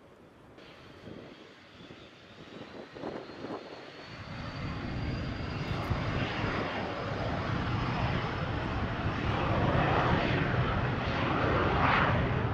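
Gates Learjet 35A's twin Garrett TFE731 turbofans on departure, growing steadily louder over several seconds, with a thin high whine that rises slowly in pitch above the roar.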